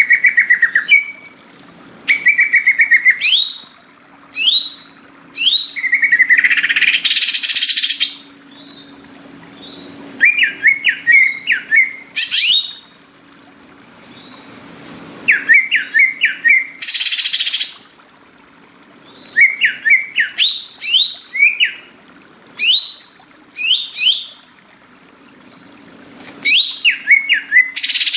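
Cucak ijo (green leafbird) singing in repeated bursts of rapid chirping and whistled notes, with harsh raspy notes mixed in, over a faint steady hum.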